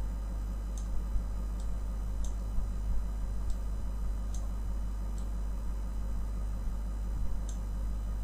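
Light computer mouse clicks at an uneven pace, about one a second, over a steady low electrical hum.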